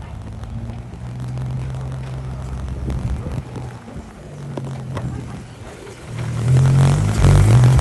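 Car engine running steadily at low revs, then revving and growing much louder near the end.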